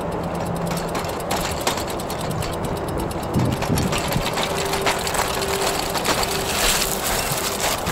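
Bicycle ridden over a rough, dry dirt track: a steady run of rapid ticking and rattling from the bike and its load.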